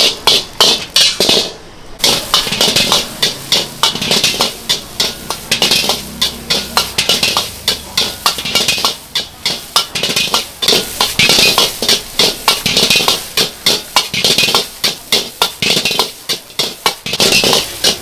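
Metal spatula clanging fast and rhythmically against a wok while fried rice is stir-fried over high heat, with a hiss of sizzling under the strikes.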